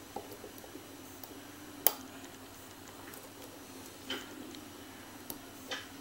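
Lock pick and tension wrench working the pins of a brass lock cylinder: faint scattered ticks and scrapes, with one sharper click about two seconds in and a few smaller clicks near the end, over a low steady hum.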